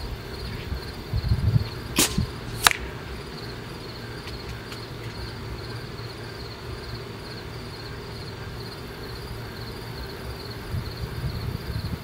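A Benjamin Marauder .25 pre-charged pneumatic air rifle fires a single shot about two seconds in, a sharp crack followed about two-thirds of a second later by a second, louder sharp crack. Crickets chirp steadily in a fast pulsing rhythm throughout.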